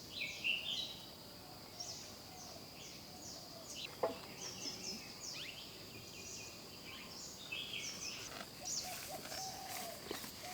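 Several birds chirping and calling in many short, quick notes, over a steady high-pitched insect drone; one louder sweeping call about four seconds in.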